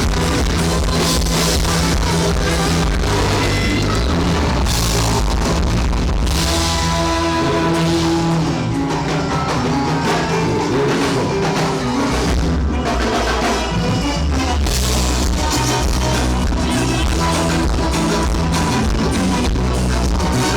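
Live band playing rock-style music through a stage sound system, loud and steady, with drum kit, bass and electric guitar.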